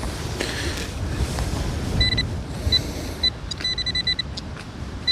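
Metal detector's electronic target tone, a high beep that breaks into short repeated beeps from about two seconds in as the target is located. Wind rumbles on the microphone throughout.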